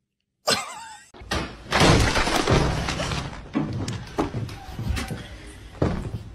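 A pet-door flap clattering and banging as a dog wearing a plastic cone collar pushes through it, with repeated sharp knocks.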